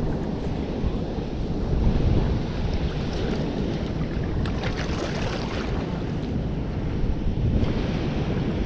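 Steady rush of spillway water below a dam, mixed with wind buffeting the microphone.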